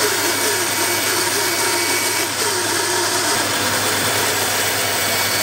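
Band saw running steadily and cutting the curved outline of a wooden knife handle. The pitch of the cut wavers through the first three seconds or so.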